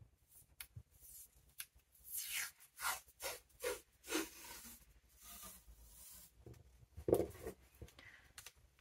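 Washi tape being pulled off its roll in a quick run of short peels, each one falling in pitch, starting about two seconds in; then paper rustling and a few taps as the strip is pressed onto a planner page.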